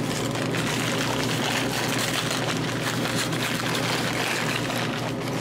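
Brown paper bags rustling and crinkling as they are opened by hand, over a steady hiss of background noise.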